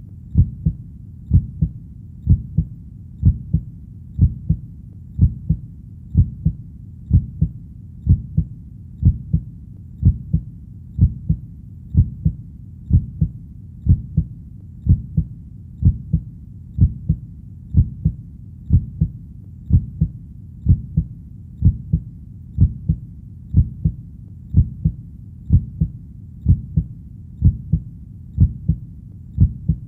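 Heartbeat, a steady lub-dub: a pair of low thumps about once a second, repeating evenly.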